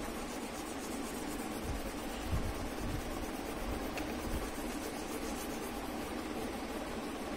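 Steady background hiss, with a few soft low thumps about two seconds in and again past the middle.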